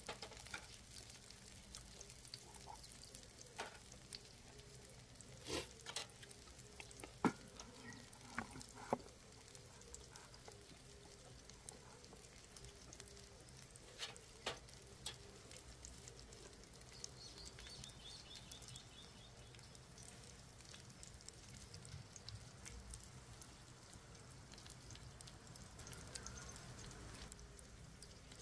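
Beef short ribs frying quietly on an iron griddle, a faint steady sizzle broken by scattered sharp clicks and taps, most of them in the first half.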